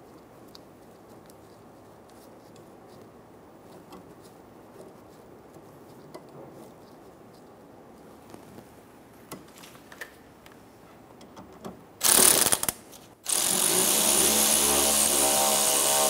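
Light clicks of the parking-brake cable end being worked into its bracket, then a cordless power tool spinning a socket on the cable bracket bolt: a short burst about twelve seconds in, then a steadier run of a few seconds to drive the bolt down.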